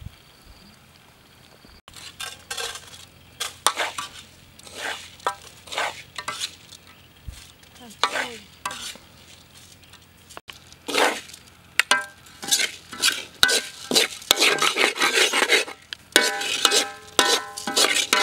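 Metal spoon and spatula scraping and stirring rice in an aluminium wok and scooping it into a pot. The strokes start about two seconds in, and sharper ringing metal clinks join in from about twelve seconds.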